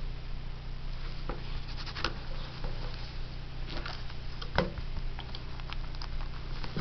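Denim jeans and a plastic embroidery hoop being handled and shifted under a sewing machine's presser foot: scattered rustles and light knocks at irregular moments, the loudest a sharp knock about four and a half seconds in. A steady low hum runs underneath.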